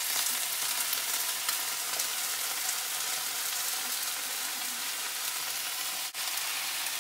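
Bok choy and garlic sizzling in a hot frying pan just after a splash of liquid has been poured in, a steady hiss as the liquid boils off into steam. The sizzle cuts out for an instant about six seconds in.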